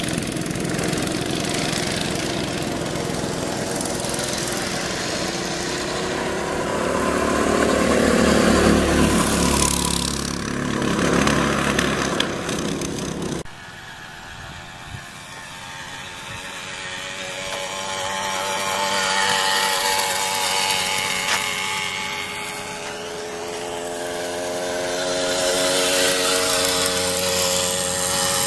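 Small engines of go-karts and mopeds running around an asphalt track, rising and falling in pitch as they rev and pass. About halfway through the sound drops suddenly, then a quieter moped engine swells and fades twice as it rides by.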